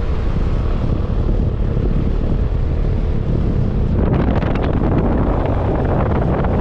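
Wind buffeting the microphone over the running noise of a vehicle on the move. The noise is loud and steady and grows harsher about four seconds in.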